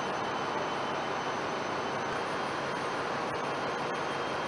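Steady, even background noise: a constant hiss with no distinct tool clicks or knocks standing out.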